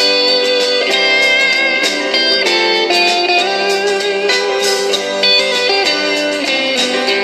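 Guitar music with slide-guitar notes playing through an XBOOM Mini Capsule portable speaker, picked up by a camcorder microphone, with almost no deep bass.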